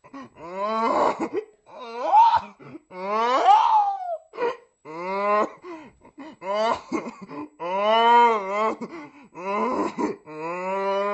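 An adult man crying in a tantrum: a run of wailing sobs that rise and fall in pitch, broken by short gasping breaths.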